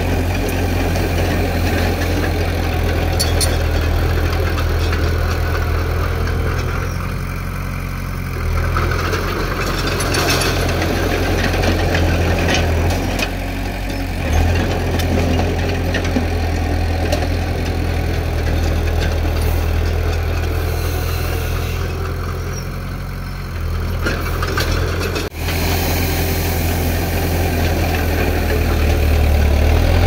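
Heavy construction machine's diesel engine running steadily, its level easing off and coming back up every few seconds, with one very brief dropout late on.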